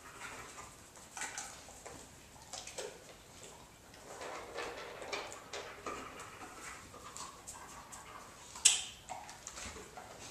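German Shepherd dog nosing at a seated person's hands and lap on a tile floor: scattered short sniffs and shuffling movements, with one sharp high-pitched sound about nine seconds in, the loudest in the stretch.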